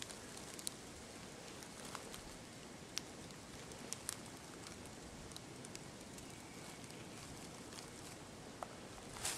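Quiet woods: a faint steady hiss of outdoor ambience with a few small scattered ticks and clicks.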